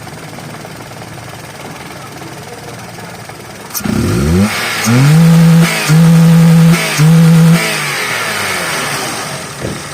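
Toyota Vitz petrol engine idling, then revved up sharply and held high three times in a row, each for about a second, before settling back. It is being test-revved after the swapped pulse wires on the cylinder 3 injector connector were put right.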